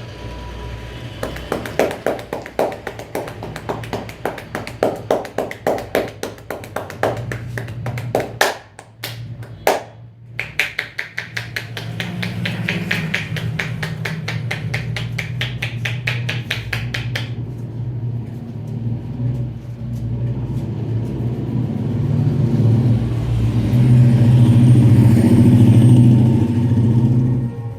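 Hands slapping and tapping on a head in an Indian head massage, a few strikes a second, then a faster, sharper run of strokes. Over the second half a motor vehicle engine rumbles, growing louder toward the end.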